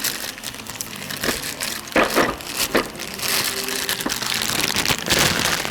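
Packaging crinkling and rustling as a new VANOS camshaft adjuster is unwrapped, in irregular crackling bursts with a louder rustle about two seconds in and again near the end.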